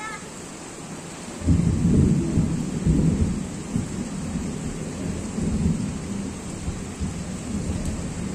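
Steady heavy rain falling on a wet street. About a second and a half in, a long, low rumble of thunder breaks in suddenly and rolls on, swelling and fading.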